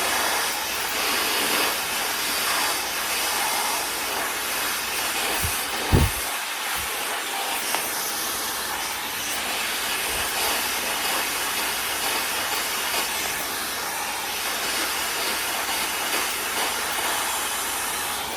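Handheld hair dryer blowing steadily, an even rush of air, with a brief low thump about six seconds in; it cuts off at the very end.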